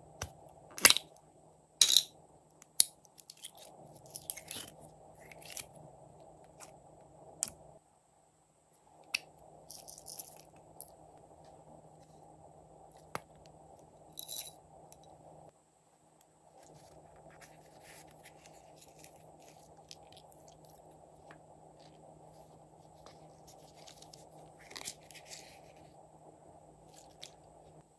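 Small plastic slime containers being opened and handled, with sharp clicks and crackles from the plastic lids in the first few seconds, then scattered light taps, rustles and scrapes as add-ins are tipped onto slime in a glass tray. A steady faint hum lies underneath.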